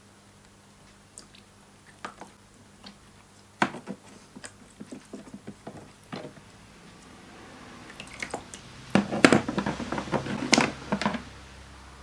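Small clicks, squelches and drips from a syringe pushing water into a pop pop boat engine's copper tube. About eight seconds in, a denser run of louder clicks and knocks follows as the syringe is laid on the tray and the engine is handled.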